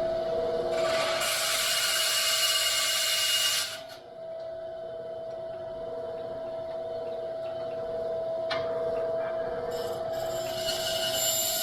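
Bandsaw running with a steady motor hum, its blade cutting through the axle section of a toy tractor twice: a loud rasping cut from about a second in until about four seconds in, and a second cut starting near the end. A single sharp click about two-thirds of the way through.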